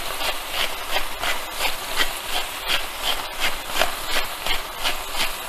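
Salt grinder being twisted, a rhythmic rasping grind about three times a second.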